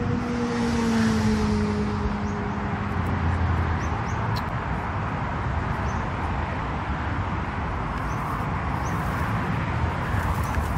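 A vehicle passing, its engine note falling slightly in pitch over the first few seconds, over a steady rushing background noise.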